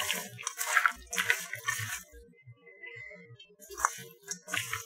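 Hands mixing raw shell-on shrimp in a stainless steel bowl: wet squishing and shells crunching against each other, in bursts, with a short pause about two seconds in.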